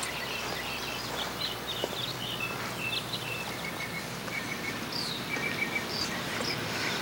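Garden ambience of small birds chirping: many short, high chirps and a few quick falling calls over a steady background hiss.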